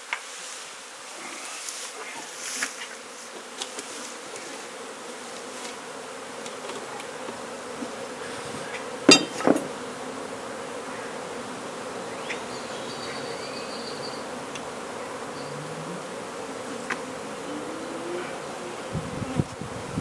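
Swarm of honey bees buzzing steadily, with a couple of sharp knocks about nine seconds in.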